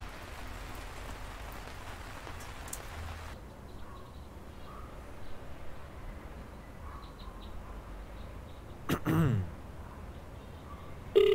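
Rain falling for about the first three seconds, then stopping abruptly, followed by a quieter stretch with faint chirps. About nine seconds in there is a short sound that slides down in pitch, and right at the end a phone starts to ring.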